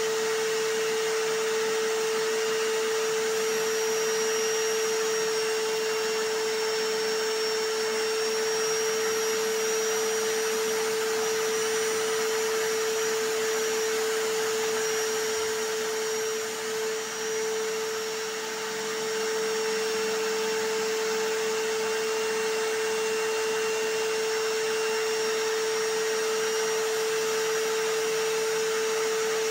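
Vacuum cleaner running steadily: a constant rush of air with a strong, even hum, dipping slightly a little past halfway through.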